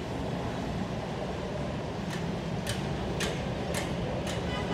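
Distant, steady low rumble of an Airbus A350-900's Rolls-Royce Trent XWB engines at climb power as the airliner climbs away after takeoff. In the second half a run of five sharp ticks comes about half a second apart.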